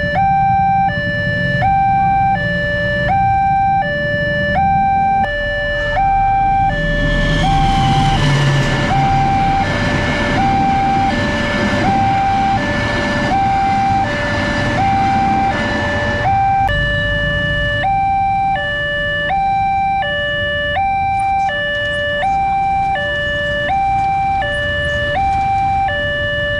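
Railway level-crossing warning alarm sounding its two-tone electronic signal, switching pitch about every three-quarters of a second. From about six seconds in to about sixteen seconds, a passing passenger train's rumble and wheel noise rises under it and then fades.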